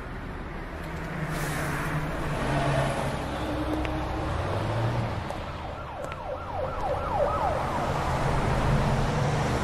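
Slowed, reverberant ambient intro of a song: a noisy wash with low held tones that shift in pitch, and a run of quick rising whoops about halfway through, before the instruments come in.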